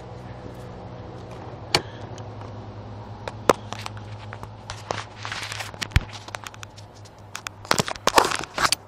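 Honda ATC 250ES Big Red's single-cylinder four-stroke engine idling steadily; it stops near the end. From about five seconds in, sharp clicks and crunching footsteps sound over it.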